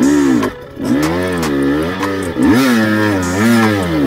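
Husqvarna TE300i's single-cylinder two-stroke engine revving up and down several times under the rider's throttle, with a short dip about half a second in where the revs fall away before it picks up again.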